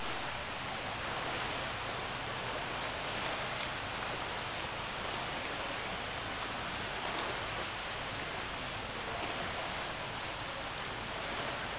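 Steady rush and splashing of water in a swimming pool as a swimmer trains.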